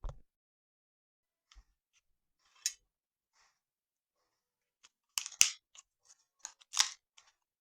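Eating sounds: scattered short, crisp crunches and clicks, sparse at first and loudest in two clusters in the second half.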